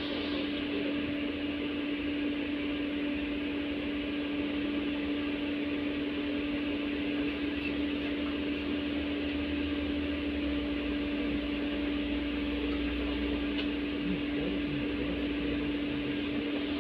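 Interior noise of an LVS-86 tram: a steady mid-pitched hum over an even whooshing noise and a low rumble, unchanging throughout.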